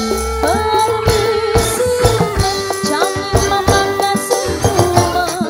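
Live Sundanese street-procession music: a sustained, wavering melody line over repeated drum strokes, with rattling percussion.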